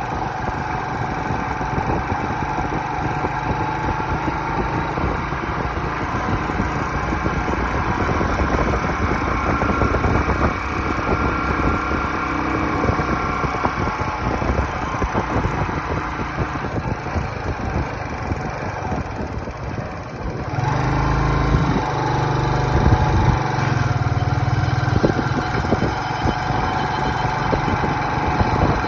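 Motorcycle engine running under way, with steady wind and road noise. About two-thirds of the way through, the engine gets louder and its low note comes forward, as when the rider opens the throttle.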